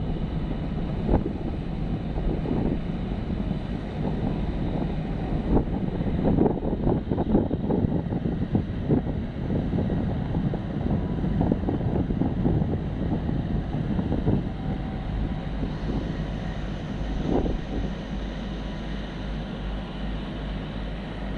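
Wind buffeting the microphone in uneven gusts, over a low steady engine drone.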